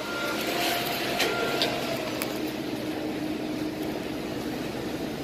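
Steady hum and hiss of a convenience store's background noise, with a few faint clicks about a second in.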